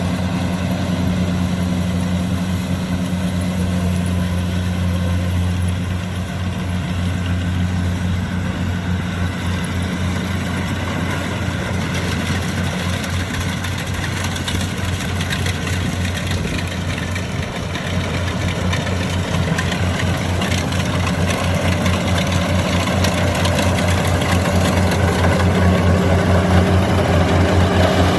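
Heavy farm-machine diesel engine running steadily, with a deep even hum that grows a little louder near the end.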